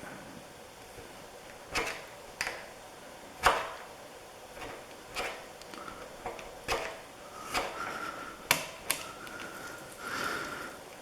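Hand tool scraping paint off a painted-over steel grease nipple: irregular sharp scrapes and clicks, about ten in all, with a thin squeal from the metal in the later part.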